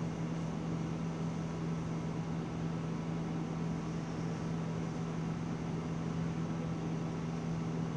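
Steady hum of room air conditioning, an even hiss with a low drone held at one pitch.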